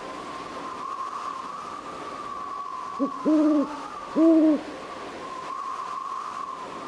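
An owl hooting: a brief note followed by two longer, level hoots about three to four and a half seconds in. Under them runs a steady, slightly wavering high tone.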